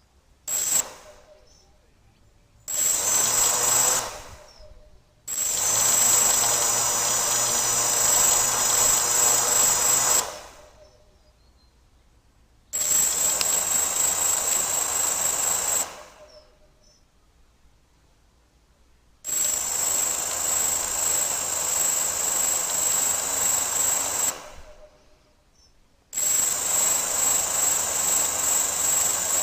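Gaui 330X quadcopter motors spinning up in repeated bursts of a few seconds each, with a steady high whine and a rippling, uneven running. The owner hears a strange clicking from the motors in it and cannot explain it.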